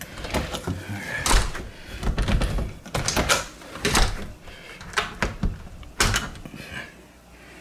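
Newly installed front-door lockset being worked by hand: an irregular string of sharp clicks and knocks, about ten in all, as the knob is turned and the latch and lock hardware snap and the door rattles in its frame.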